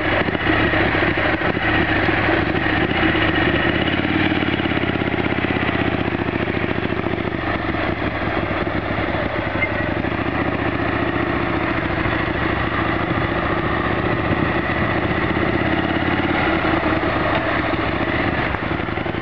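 Cruiser motorcycle engine running steadily at low revs.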